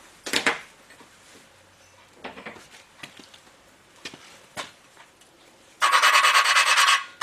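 A few light clinks and taps of metal, then, about six seconds in, a loud gritty rasp with a fast pulse: a Willys L-head engine valve being lapped against its seat in the block with valve grinding compound, using a hand lapping stick, to show where the valve contacts the seat.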